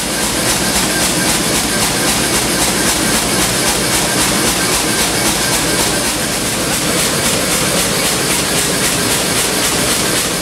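Gas forge burner running, a steady loud hiss that cuts off near the end.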